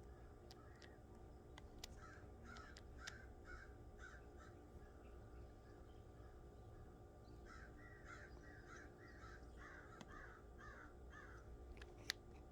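Faint calls of large black birds: short calls repeated in quick runs, one run a couple of seconds in and a longer one from about halfway, with a few sharp clicks, the loudest near the end.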